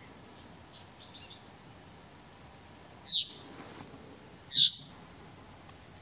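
ʻIʻiwi (Hawaiian honeycreeper) calling: a few faint short high notes, then two loud short calls about a second and a half apart.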